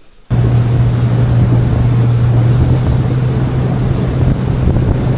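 Fishing boat under way, its Honda 90 four-stroke outboard running at a steady speed with a constant low hum. Water rushing past and wind buffeting the microphone sit over it. The sound cuts in abruptly a moment in.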